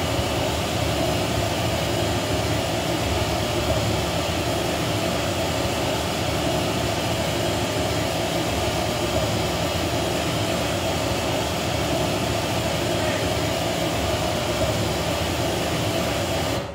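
Steady pink-noise test signal played through JBL SRX815 loudspeakers, the measurement signal for a Smaart analyser while the top cabinets are being equalised. It cuts off suddenly at the end.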